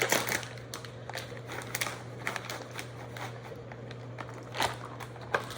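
Plastic bag of shredded Gruyere cheese crinkling and rustling as it is handled and emptied into the dish, with a few sharp clicks, the sharpest right at the start and near the end. A steady low hum runs underneath.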